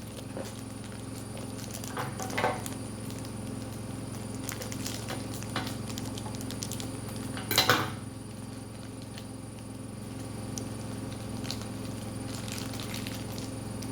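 Small plastic toy packs being handled and opened by hand: scattered light clicks and crinkles, with a louder rustling crackle about seven and a half seconds in.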